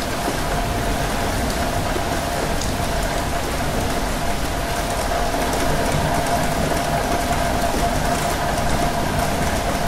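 Steady rain falling, an even hiss with scattered drop ticks, over a continuous low rumble and a faint steady hum.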